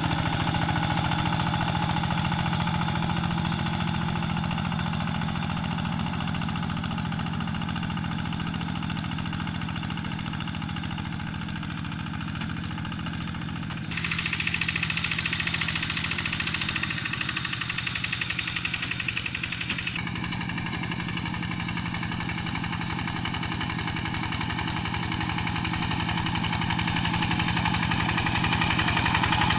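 Quick G1000 two-wheel hand tractor's single-cylinder diesel engine running steadily under load while working the paddy, growing fainter and then louder again as it moves. The sound changes abruptly about halfway through.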